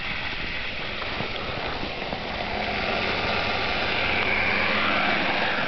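Kyosho Blizzard DF300 radio-controlled tracked vehicle running on its brushless motor: a faint whine over a steady rushing noise.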